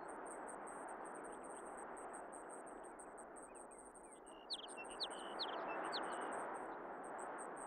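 Natural outdoor ambience: a steady hiss with an insect trilling in rapid pulses high above it. About halfway through, a songbird sings a short phrase of quick rising and falling whistled notes.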